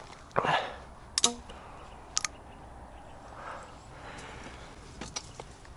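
A few sharp metallic clicks and handling noises as a break-action shotgun is opened and a shell is taken out of it.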